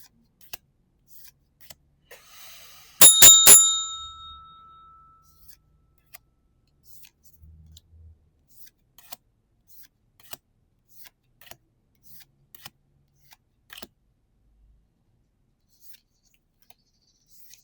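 Light clicks of cards being handled and a brief foil-like rustle, then a loud bell-like metallic ring struck three times in quick succession about three seconds in, dying away over a second or two.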